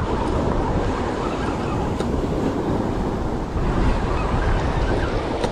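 Ocean surf breaking and washing against a rock ledge, a steady churning rush, with wind buffeting the microphone.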